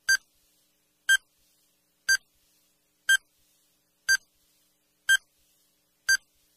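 Countdown timer sound effect: short, identical electronic beeps, one a second, seven in all, ticking off the seconds of a countdown.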